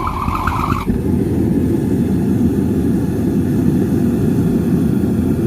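Gas forge burner running hard with a steady low rush of flame, as the forge is brought up to forge-welding heat. A brief high whistle sounds in the first second, then stops.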